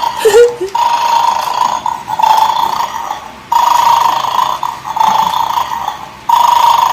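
The battery-operated toy dog of the Bad Dog board game sounding its electronic alarm: a steady buzzy tone in stretches of one to three seconds, with short breaks, over a fast mechanical clicking.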